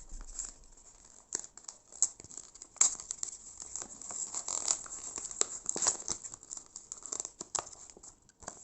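Packaging being handled: irregular crinkling and rustling with scattered sharp clicks and taps.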